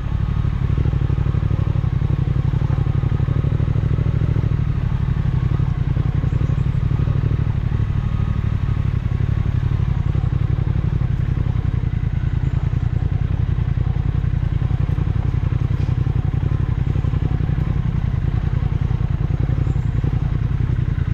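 Triumph Speed Twin 1200's parallel-twin engine running steadily at an even pitch, with no revving.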